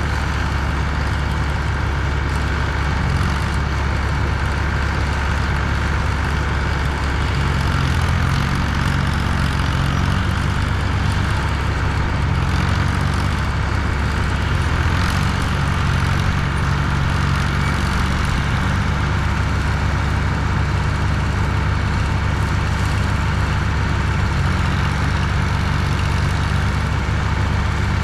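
Heavy diesel engine running steadily: a loud, even, deep drone with no pauses.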